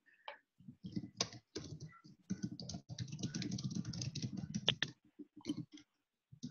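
Faint typing on a computer keyboard: a quick, uneven run of keystrokes picked up by a microphone on the video call, with a few last keystrokes after a short pause.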